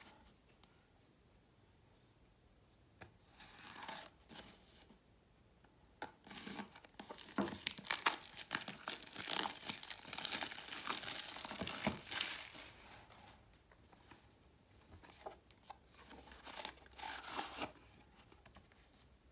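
Small cardboard box being opened: a hobby knife slits its seal, then packaging tears and crinkles in a long loud stretch in the middle, with lighter rustling near the end as the inner tray slides out.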